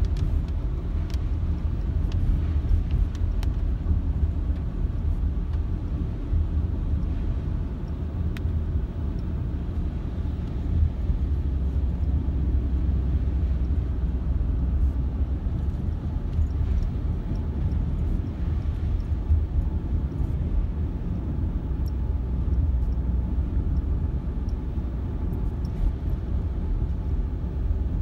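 Steady low rumble of a car driving on a wet road, heard from inside the cabin, with a few faint ticks now and then.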